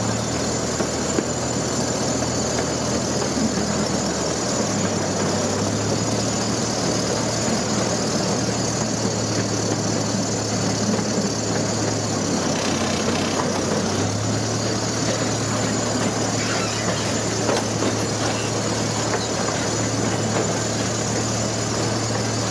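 Zoo train running steadily: a constant engine drone with the rumble and rattle of the cars. The low engine note shifts slightly a few times.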